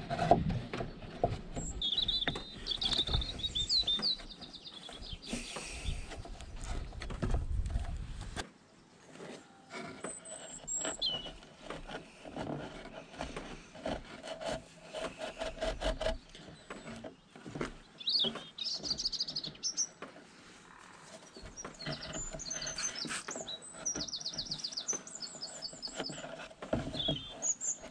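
Rope being pulled through and knotted in a hole in a pine board, with scattered rubbing, scraping and knocking of rope and fingers on the wood. Small birds chirp and trill in the background at times, and a low rumble sits under the first eight seconds or so.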